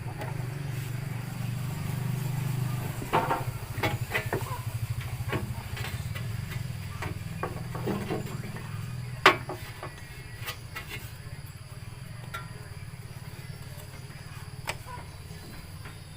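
Clinks and knocks of tools and metal parts as a removed engine part is refitted, one sharp knock louder than the rest, over a steady low hum.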